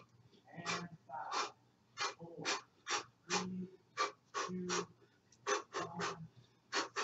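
A person's quick, forceful breaths, about three a second and irregular, some with a short voiced grunt: hard breathing in time with the movements of a cardio workout.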